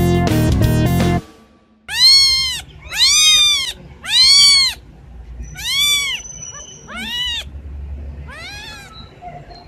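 Music stops about a second in, then a young kitten mews loudly about six times, each high-pitched meow rising and falling, the last few fainter, as it is bottle-fed milk.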